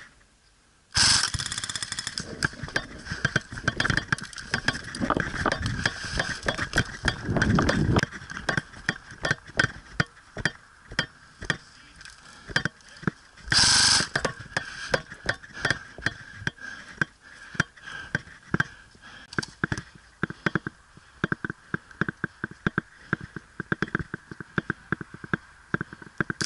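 Airsoft gunfire: electric airsoft guns firing rapid runs of sharp clacking shots and single shots, off and on throughout. Two short loud bursts of noise stand out, one about a second in and one about halfway through.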